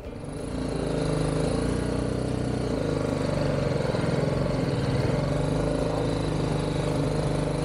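Single-cylinder engine of a BMW G 310 GS adventure motorcycle running steadily as the bike rides along, getting louder over the first second.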